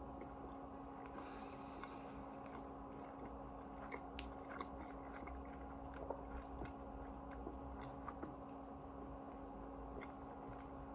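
A person chewing food with soft, scattered mouth clicks, over a steady low hum.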